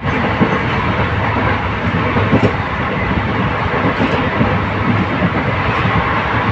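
Indian Railways superfast express train running at speed, heard from a passenger coach: a steady rumble and rattle of wheels on track, with a faint click about every one and a half to two seconds.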